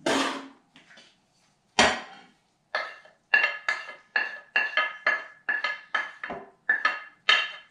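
A utensil knocking cooked spaghetti squash off a plate into a glass mixing bowl: a clatter at the start and another about two seconds in, then about a dozen quick ringing clinks, two to three a second.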